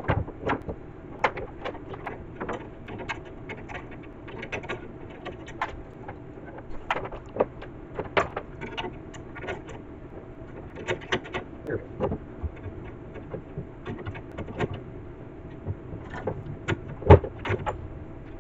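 Irregular clicks, taps and knocks of hand tools and metal parts being handled, some in quick clusters, with the loudest knock near the end, over a steady faint hum.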